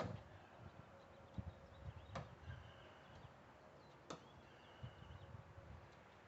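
Near silence, broken by three faint sharp clicks about two seconds apart and a few soft low thumps.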